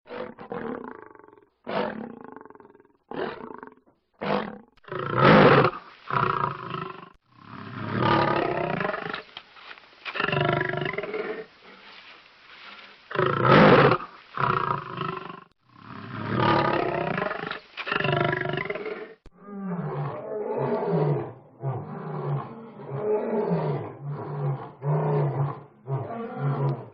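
Lion growling in a series of deep growls, short ones first and then longer, louder ones. From about two-thirds of the way in, a low, rapidly pulsing growl.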